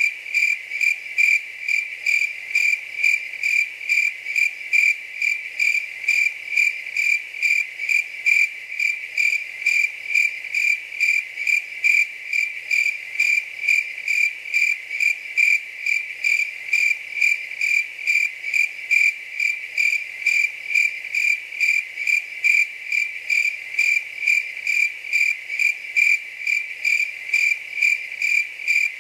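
A cricket chirping steadily: one high-pitched chirp repeated evenly, about two to three times a second.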